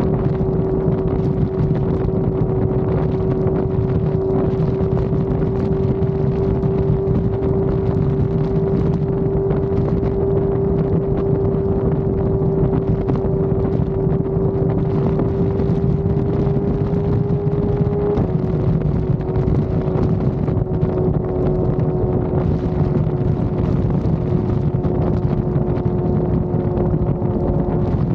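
Motorcycle engine running at steady freeway cruising speed, with wind and road rush over the microphone. The engine holds one steady pitch that creeps up slightly, then drops a small step about two-thirds of the way through.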